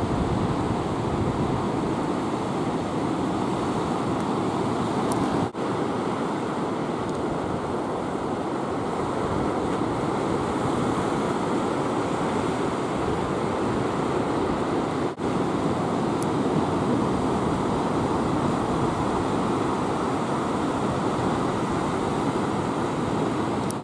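Ocean surf breaking and washing, a steady roar of white water with wind buffeting the microphone, briefly cutting out twice.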